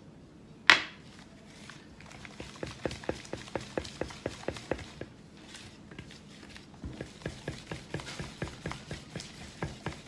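A mixing utensil beating creamed butter, sugar and egg in a glass bowl, ticking against the glass about four times a second in two runs, with one sharp knock on the bowl under a second in. The egg is being worked in to emulsify it into the butter for cookie dough.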